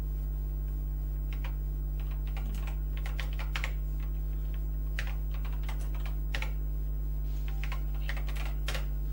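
Keys being typed on an Acorn Electron's keyboard, in short irregular bursts of clicks, over a steady low hum.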